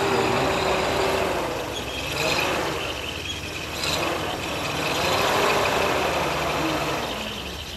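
Engine of a WWII army truck running steadily, a low, even pulsing throughout.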